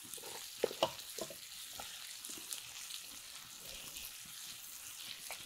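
Onions frying in oil in a pan with a light steady sizzle, stirred with a spatula, which clacks against the pan a few times in the first two seconds.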